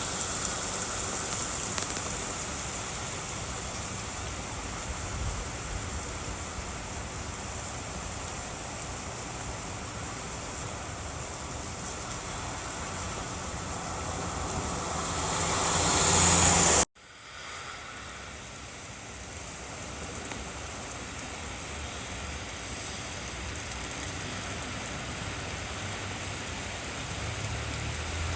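Steady noise of rain and a car's road and engine noise, swelling to its loudest about halfway through, then cutting off abruptly and coming back quieter.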